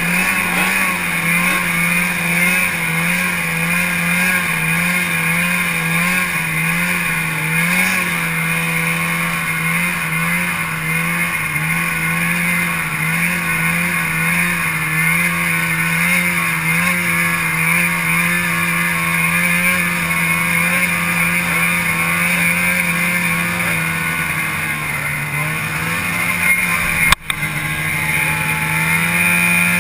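Arctic Cat snowmobile engine running at low, fairly steady revs with a gently wavering pitch, heard from the rider's seat. Near the end there is a single sharp click.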